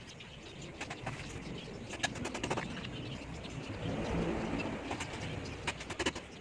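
Scattered small metal clicks and taps as bolts are handled and fitted at an electric scooter's rear wheel axle, with birds calling in the background.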